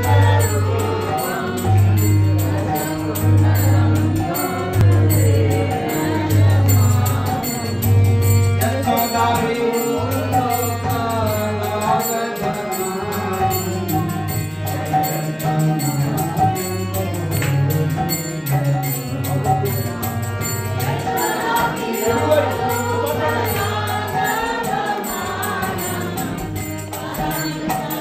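Devotional group singing (kirtan) with small jingling hand cymbals and a deep drum beat, the drum pulsing about once a second in the first eight seconds.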